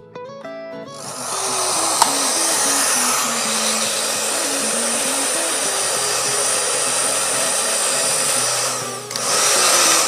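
Handheld electric hair dryer switched on about a second in, its fan blowing with a steady rushing hiss and a thin high whine, then switched off near the end. It is a test run after repairing a dryer that blew air but gave no heat.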